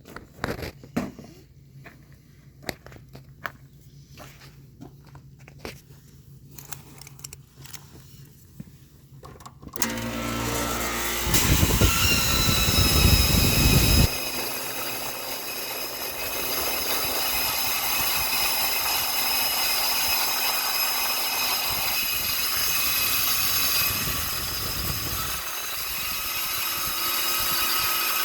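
Copeland compressor starting about ten seconds in after some light tapping and handling. It gives a loud rough noise for a few seconds, then settles into steady running with a high whine over its hum.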